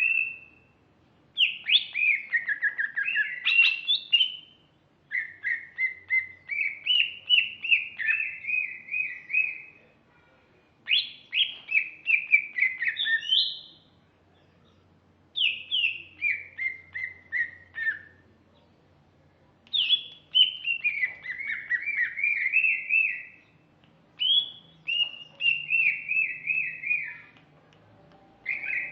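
Female green leafbird (cucak ijo) singing: about seven phrases of rapid, warbling chirps, each a few seconds long, with short pauses between them.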